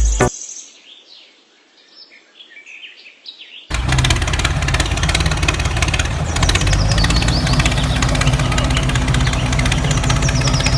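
Faint bird chirps, then an engine running loudly and steadily, cutting in suddenly a little under four seconds in.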